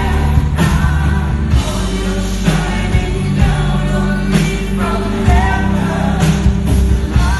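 Live pop performance: a female lead vocal sings a melody over a band with heavy bass.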